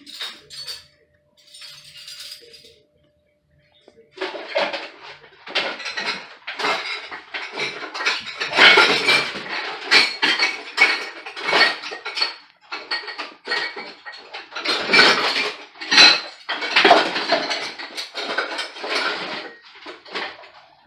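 Metal cutlery clinking and clattering as spoons, forks and knives are dropped one after another into a dishwasher's silverware basket. A few faint clinks come first, then a dense, continuous run of clatter from about four seconds in.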